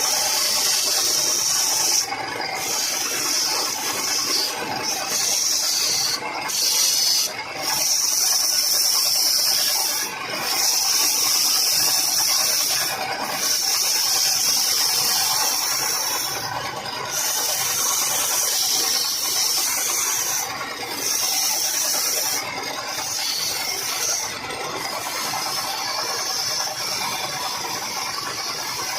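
Wood lathe running with a tool scraping the spinning wood, making a steady high hiss that breaks off briefly about ten times as the tool is lifted and set back.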